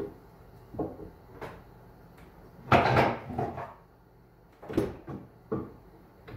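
Wooden knocks and clunks as the hinged wooden top of a lathe bench is handled, about seven in all, the loudest a short clatter about three seconds in.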